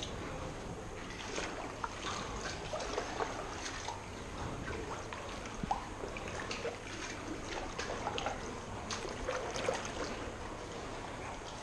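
Water splashing and trickling around a kayak as it is paddled, with many small splashes and drips at irregular intervals over a steady low background noise.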